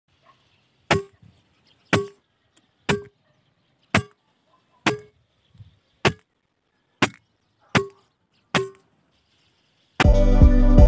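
Air rifle shots: nine sharp cracks about a second apart, each with a short ringing tone. Music starts near the end.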